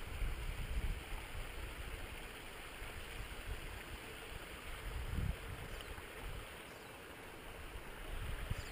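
Small mountain creek running steadily, with a few low gusts of wind buffeting the microphone, near the start, about five seconds in and near the end.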